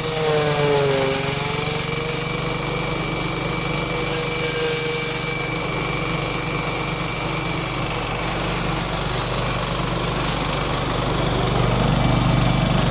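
Engine-driven farm machine running steadily. Its pitch dips briefly about a second in and then recovers, and it gets a little louder near the end.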